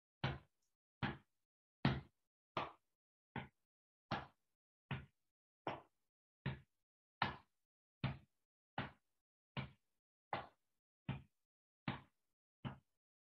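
Hands tapping firmly on the chest in the butterfly hug, the crossed hands patting left and right in turn: a steady, even thump about every 0.8 seconds.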